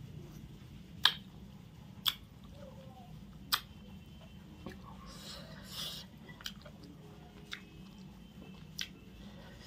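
Close-up chewing and lip-smacking of chicken biryani, with sharp wet mouth clicks about once a second. There is a brief rustle in the middle as fingers pull meat from a chicken leg bone.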